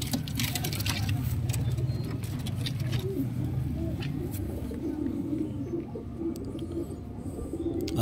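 Domestic pigeons cooing steadily in a loft, a low, rolling murmur, with a few light clicks near the start.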